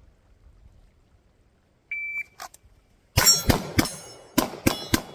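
A shot timer beeps once. About a second later a rapid string of pistol shots begins, with the steel plates ringing as they are hit.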